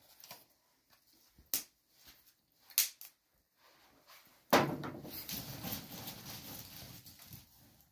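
A couple of sharp clicks, then, a bit past halfway, a sudden loud start of rustling and crinkling for about three seconds as a hand rummages in a woven plastic sack of walnut shells.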